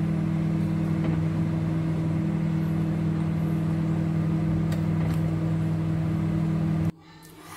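Microwave oven running with a steady hum, then cutting off abruptly near the end.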